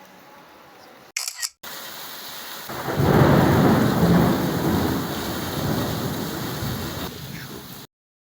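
Steady rain with a loud rolling thunderclap that swells about three seconds in and rumbles away over several seconds, after a couple of short clicks about a second in; the sound cuts off near the end.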